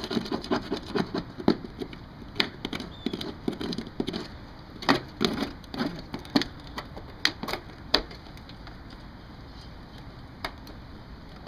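Old caulking, softened by a propane torch, being scraped and picked off a metal eavestrough seam with a flat-blade tool: a run of irregular scrapes and sharp clicks that thins out after about eight seconds.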